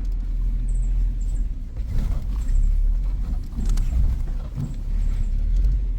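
Suzuki Jimny driving over a rough off-road track: a steady low engine and road rumble with scattered knocks from the wheels and body hitting bumps.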